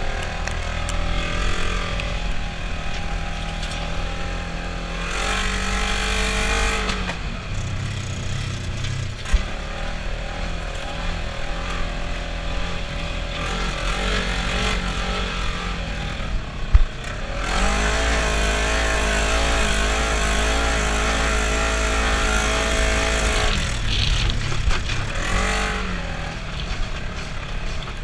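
Polaris RZR side-by-side's engine running under way, revving up and down, with a long stretch held at steady high revs about two-thirds of the way through. Two sharp knocks come along the way.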